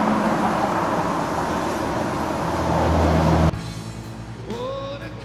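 Loud, steady hiss of a handheld torch flame, cutting off suddenly about three and a half seconds in.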